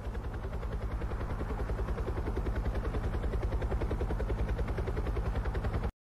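Helicopter rotor chop: a steady, rapid pulsing beat over a low drone, cutting off suddenly near the end.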